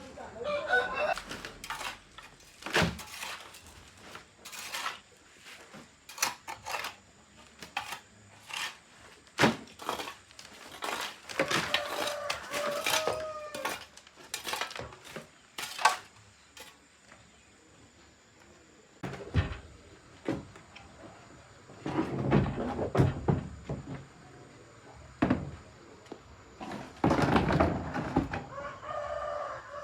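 Scattered clinks and knocks of hard objects being handled, clattering like dishes or metal tools. A rooster crows about halfway through and again at the very end.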